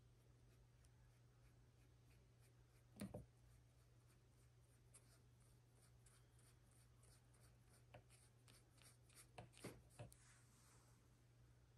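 Near silence over a low steady hum, with faint taps and scratches of a small paintbrush working ink onto a paper page: a soft double knock about three seconds in and a run of light ticks near the end.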